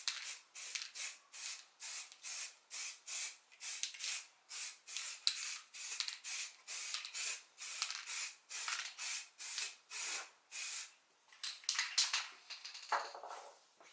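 Primer being sprayed from a spray can onto a plastic car bumper in quick short bursts, about two to three hisses a second, for about eleven seconds, then a few scattered handling noises near the end.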